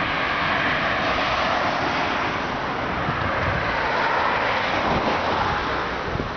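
Steady rushing noise of passing vehicles, easing slightly near the end.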